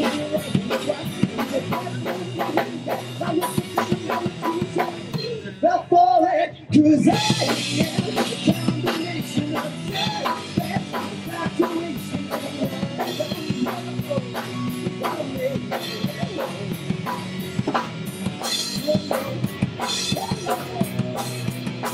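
Live rock band playing: electric guitar, bass guitar and drum kit through stage amplifiers. About six seconds in the band breaks off for a moment and comes back in hard with the drums.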